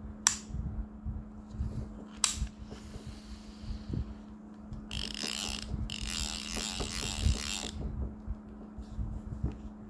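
Abu Garcia Black Max 3 baitcasting reel being taken apart by hand: two sharp clicks, then from about five seconds in a rasping mechanical ratcheting lasting nearly three seconds.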